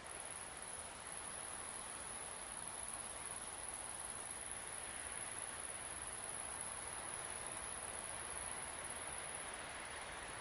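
Crickets trilling in one steady, unbroken high tone over a soft, even rush of wind across open country.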